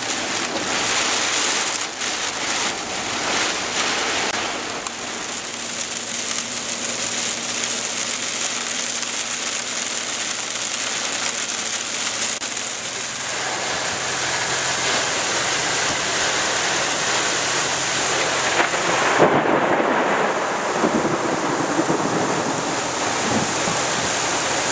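Heavy rain in a thunderstorm: a steady hiss of rainfall, with a louder burst about two-thirds of the way in.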